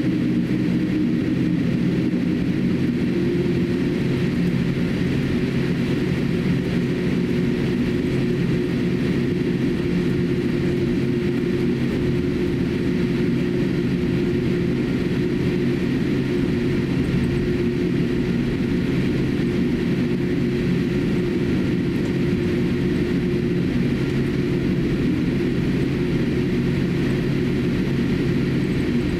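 Cabin noise of a Boeing 787-8 airliner taxiing: a steady hum from the engines at taxi power with several low steady tones.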